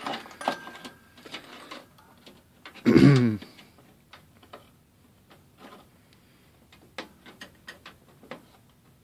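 Scattered small clicks and knocks of a PCI Express graphics card being handled and lined up with its motherboard slot and the metal case's rear bracket. About three seconds in there is one brief, louder sound whose pitch falls.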